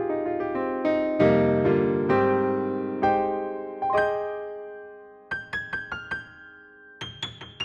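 Roland Fantom synthesizer playing a piano-like keyboard patch: ringing chords and notes that fade away, with a louder chord about a second in. From about five seconds in come short, quick notes, and another run of them near the end.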